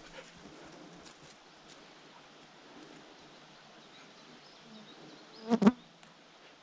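Flying insect buzzing: one short, loud buzz about five and a half seconds in.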